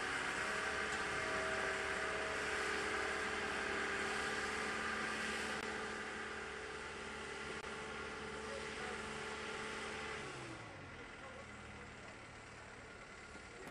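Engine of a mobile boat hoist (travel lift) running steadily, then its pitch falls and it drops to a lower idle about ten seconds in.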